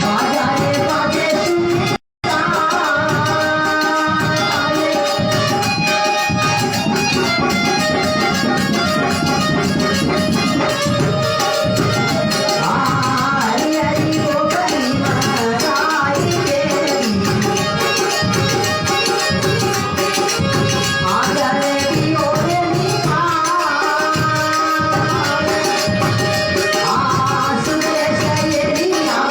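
Folk devotional music: a dholak drum keeps a dense rhythm under jingling hand cymbals and a sustained melody line. The sound cuts out briefly about two seconds in.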